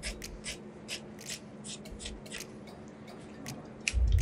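Scissors snipping through brown fabric in a run of short, crisp cuts, about two or three a second. A dull low thump comes near the end as the fabric is handled.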